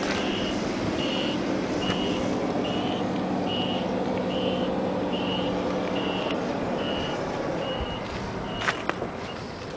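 A vehicle's back-up alarm beeping at a steady pace, about once every 0.8 seconds, over a steady engine hum. The hum drops out about six seconds in, and the beeping stops near the end, where a few sharp knocks are heard.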